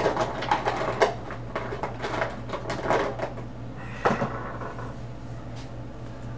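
Colouring on paper: quick scratchy back-and-forth strokes of a colouring pencil or marker, with small clicks and a sharper knock about four seconds in, then lighter strokes. A steady low electrical hum runs underneath.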